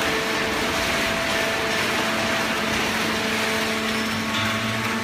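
Fully automatic horizontal hydraulic waste-paper baler running: a steady mechanical din from its hydraulic pump and motor, with a few steady hum tones. A lower hum comes in about four seconds in.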